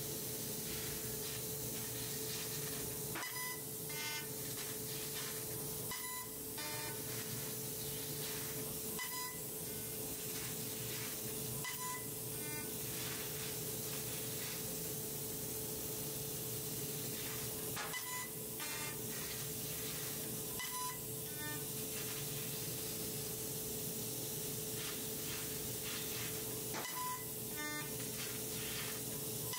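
12 kW fiber laser cutting machine cutting 12 mm carbon steel plate: a steady hissing of the cut and gas jet over a steady hum, with short beep-like tones and clicks every few seconds, often two close together.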